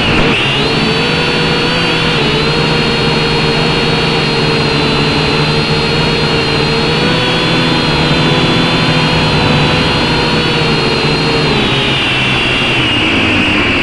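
Motors and propellers of a small radio-controlled aircraft carrying the camera, heard from on board: a steady high whine over a hum. The pitch wavers just after the start, holds steady, then dips and rises again near the end.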